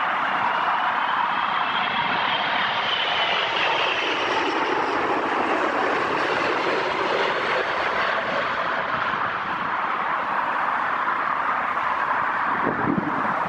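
Airbus A380's four Engine Alliance GP7200 turbofans on final approach, passing close by: steady, loud jet noise with a whining tone that slides down in pitch as the aircraft goes past.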